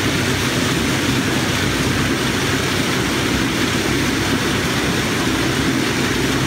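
Steady, unbroken running noise of a rotating drum nut roaster, with roasted peanuts pouring out of the turning drum into a plastic sack.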